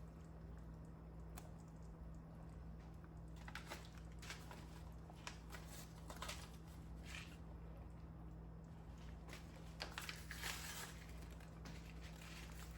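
Irregular soft rustling, rubbing and light clicks of hands handling things in a kitchen, starting a few seconds in and busiest near the end, over a steady low hum.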